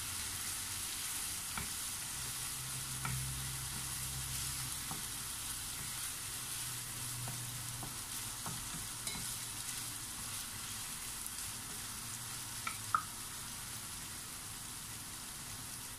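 Pork belly in soy and oyster sauce sizzling in a nonstick frying pan as it is stirred with a wooden spatula to keep it from sticking. A steady hiss of frying runs under scattered light scrapes and taps of the spatula on the pan, with one sharper tap near the end.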